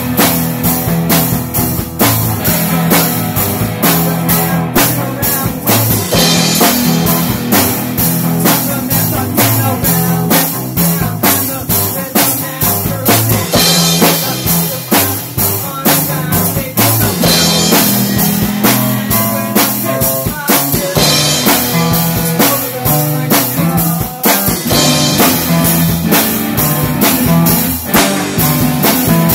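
Rock music from a full band: a drum kit keeps a steady beat under electric guitar and a bass line that steps between notes.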